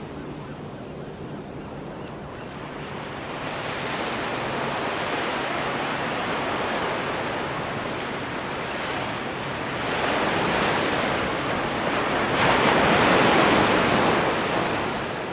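Ocean surf washing onto a sandy beach, the rush of the waves swelling and easing in a few slow surges, the loudest near the end.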